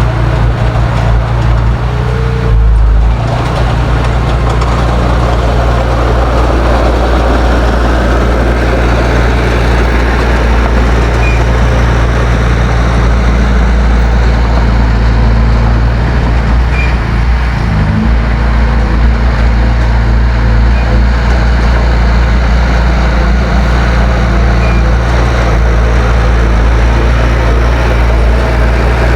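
Heavy diesel engine of earthmoving equipment running steadily under load, with a brief shift in engine note about three seconds in and a small rise in pitch around eighteen seconds.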